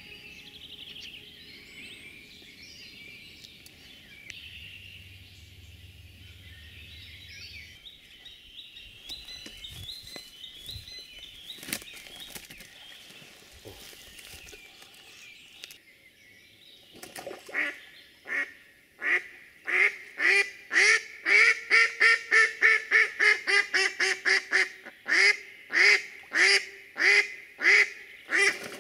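Small birds singing faintly. About 17 seconds in, a piebald decoy hen duck starts a long, loud run of quacks, about two to three a second. This is a decoy hen calling to draw drakes.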